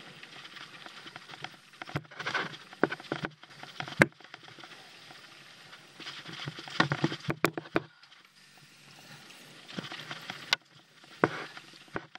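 Mountain bike rolling down a dry, rocky dirt trail: tyres crunching over dirt and stones while the bike rattles, with sharp knocks over bumps. It goes quieter for a moment about two-thirds of the way through.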